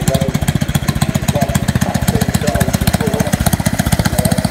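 An engine idling steadily, a fast, even pulse.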